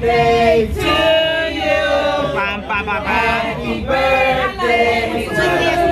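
A group of men and women singing together in held notes.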